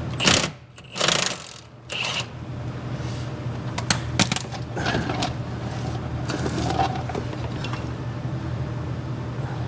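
Three short hissing bursts in the first two seconds, then scattered metallic clinks and taps of tools and parts, over a steady low hum.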